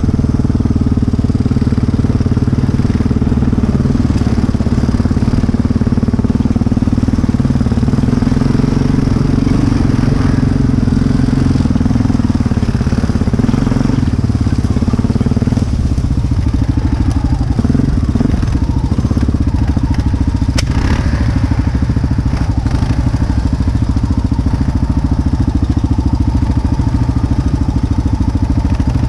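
Sport quad's engine running steadily at trail-riding pace, close to the microphone. About halfway through, the note shifts to a lower, more pulsing chug, and there is one sharp click a few seconds later.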